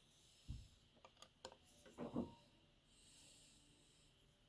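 Faint handling noises at an industrial sewing machine: a soft low thump, a few light clicks, then a short rustling knock about two seconds in. A rod is being worked into the needle-plate opening to hold the bobbin hook assembly for retiming.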